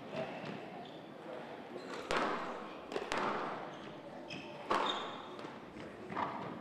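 Squash rally on a glass court: about four sharp cracks of the ball off rackets and walls, a second or two apart, each with a short hall echo. Court shoes squeak on the wooden floor between the shots.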